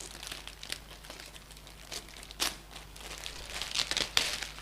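Plastic wrapping crinkling and rustling as it is handled and pulled open, in irregular bursts, with the sharpest crackle near the end.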